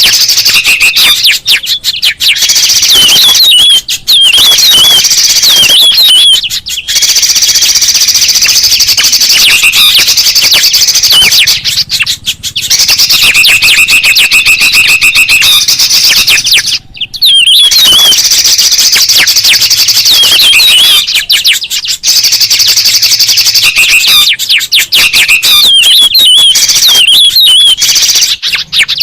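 Loud, dense chorus of many songbird calls, chirps and buzzy scolding notes overlapping with only brief gaps: a noisy bird-lure recording of several species calling at once.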